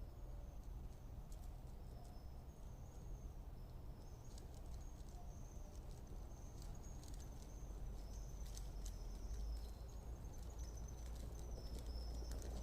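Electric bike's QS 205 hub motor and Sabvoton controller giving a faint high-pitched whine that steps up and down in pitch as the power changes. A low rumble runs under it, and scattered sharp clicks and rattles come more often in the second half.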